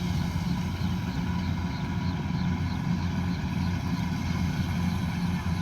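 Combine harvester's engine running steadily under load, with a faint high chirping that repeats over it.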